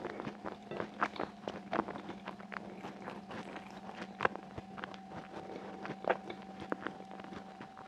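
Close-miked eating sounds: fingertips tapping and scraping a ceramic plate as chickpeas in sauce are pinched up, with small sharp clicks scattered throughout and a faint steady hum underneath.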